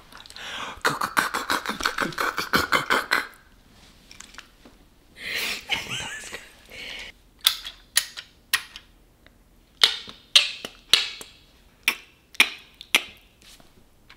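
Mouth-made sound effects in a beatbox style: a rapid pulsing run of vocal sounds, then a hissing burst a couple of seconds later, then a string of sharp mouth clicks and pops.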